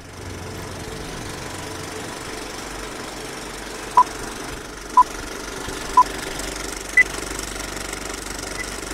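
Film projector sound effect: a steady mechanical whirr and clatter, with short countdown beeps once a second, three at one pitch and then a fourth higher one.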